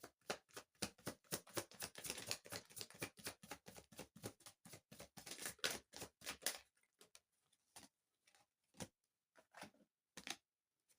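Tarot cards being shuffled and handled: a quick run of short clicks for about six and a half seconds, then a few scattered ones toward the end.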